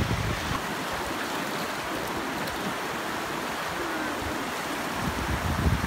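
Fast mountain river rushing over rocks in whitewater rapids, a steady hiss of running water.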